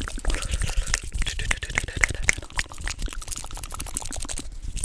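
Fast, wet ASMR mouth sounds made close to the microphone: a rapid run of clicks, pops and smacks of the lips and tongue.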